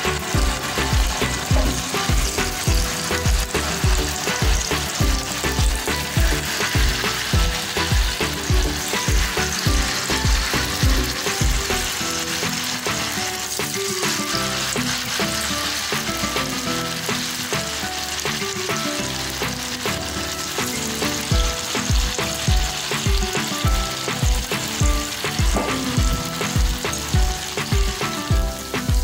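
Batter-coated elephant foot yam sticks shallow-frying in hot oil in a pan: a steady sizzle. Background music with a steady beat plays alongside, its beat dropping out for several seconds midway.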